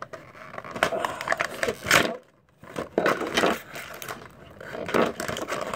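Toy packaging crackling and snapping as it is pulled apart by hand to free a fingerboard piece, in several bursts with a brief pause about two seconds in.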